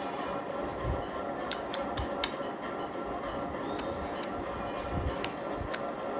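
Irregular small sharp clicks, about a dozen, with a few soft low thumps over a steady background hiss.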